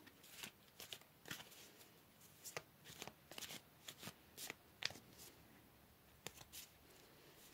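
Faint, irregular soft clicks and flicks of a tarot deck being shuffled by hand.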